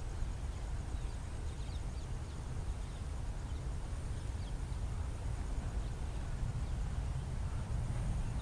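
Low, steady rumble of an approaching electric-locomotive-hauled passenger train, growing slightly louder, with birds giving faint short falling chirps.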